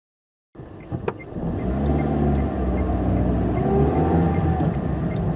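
Car engine sound effect: a sharp click about a second in, then the engine running steadily, with a brief rise and fall in pitch midway.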